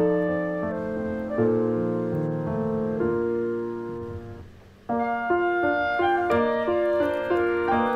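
Background piano music playing held notes. It fades away briefly about four and a half seconds in, then starts again.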